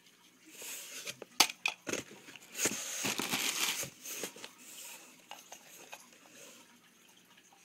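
Packaging crinkling and rustling as items are handled and pulled from a box, with a few sharp clicks and knocks; busiest in the first few seconds, dying down toward the end.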